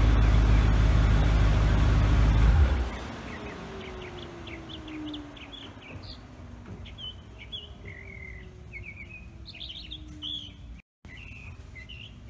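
Jeep Grand Cherokee SRT8's V8 idling loudly, then switched off about two and a half seconds in. After it stops, birds chirp, with a faint low drone slowly falling in pitch.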